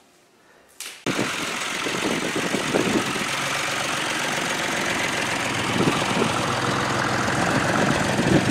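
Small farm tractor's engine running as it pulls a loaded flatbed trailer past; the sound comes in abruptly about a second in and holds steady.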